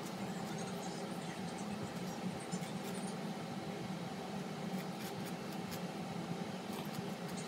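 Faint scraping and light clicks of a small metal utensil scooping margarine from a plastic tub and spreading it on toast, over a steady low hum.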